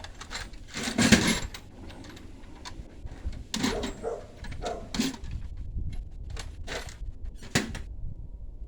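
Metal hand tools and parts clinking and knocking as the fuel line is worked off a 5.7 Vortec engine: a loud clatter about a second in, then a scatter of sharper clinks, over a low steady rumble.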